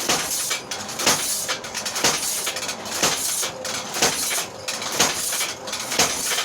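Homemade spring power hammer, driven by a motor through a tire reduction wheel, running and striking about once a second, with lighter clatter between blows. The hammer is hitting a piece of rubber tape laid over the anvil face.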